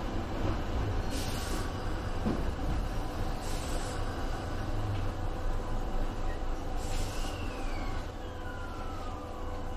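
Sanyo Electric Railway 3050-series electric train pulling away from a station and running along the line, heard from inside at the front. A steady low rumble with faint motor tones runs throughout, with three short hisses. Over the last few seconds a whine falls in pitch.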